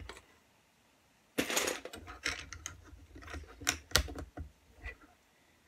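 Plastic LEGO bricks rattling and clicking as they are handled and pressed onto a LEGO plate: a short rattle after about a second and a half of quiet, then a run of light clicks, the loudest about four seconds in.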